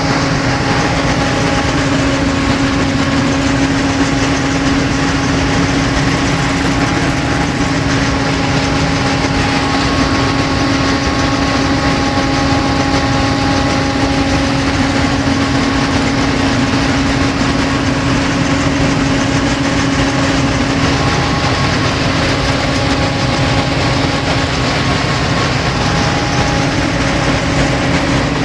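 John Deere 9780i combine harvester running steadily: an even engine drone with a constant whine held over it.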